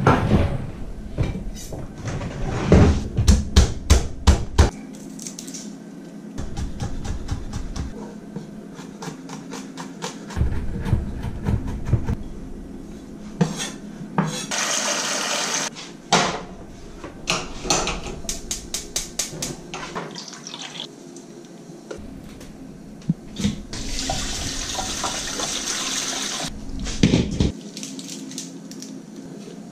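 Chef's knife chopping on a wooden cutting board in several runs of quick taps, mincing garlic and then chopping fresh herbs. A kitchen tap runs twice for a couple of seconds each time.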